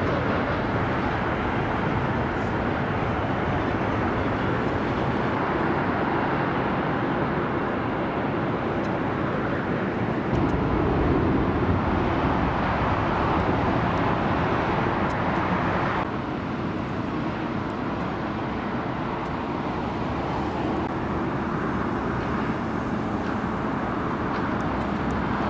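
Airport noise from jet airliner engines as planes taxi and use the runway, a steady rushing sound. It swells about ten seconds in and drops off suddenly about six seconds later.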